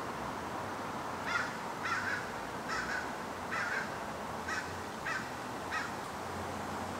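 An American crow cawing seven times in a series, short calls a little under a second apart.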